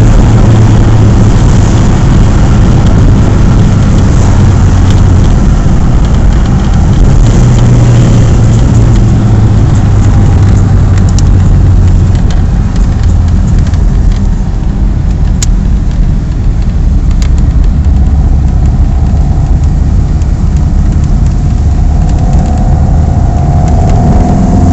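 Ford Escort Mk3's 1.6-litre four-cylinder engine on twin Weber 40 DCNF carburettors, heard from inside the cabin, running under load while the car is driven. It eases off a little about halfway through, and its pitch climbs near the end as it accelerates.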